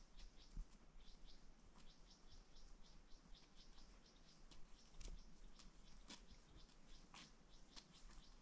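Near silence, with faint, rapid high-pitched ticks running through it and a few sharper clicks near the middle.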